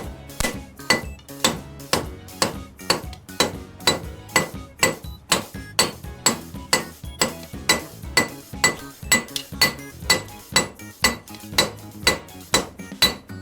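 Blacksmith's hand hammer striking hot flat bar on an anvil in a steady rhythm, about two ringing blows a second with lighter taps between, as the bar is drawn out. Background music plays underneath.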